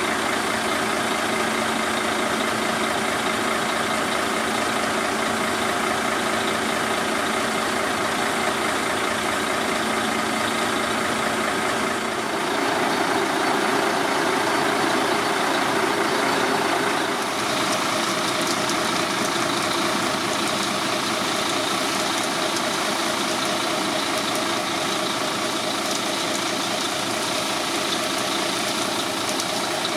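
Diesel engine of a Mercedes-Benz Actros concrete mixer truck running steadily. The sound gets a little louder and changes character between about twelve and seventeen seconds in.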